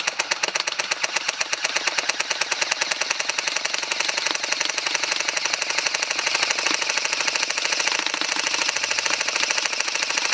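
A&K full-metal M60 airsoft electric gun firing one long unbroken full-auto burst: a rapid, steady clatter of the gearbox cycling as the remaining BBs in the box magazine are dumped.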